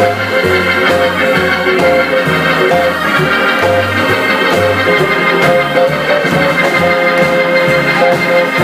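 Band instrumental break led by an electric organ playing held and moving notes over a low bass line that changes every half second or so, with no singing.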